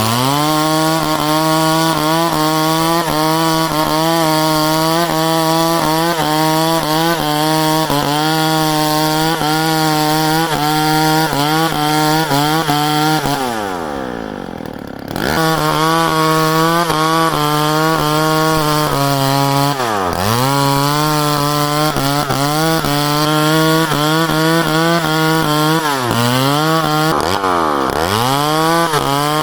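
Chainsaw running at high speed, cutting wood. Its engine pitch dips briefly several times as it takes load. About halfway through it drops to a lower, quieter speed for a second or two, then revs back up.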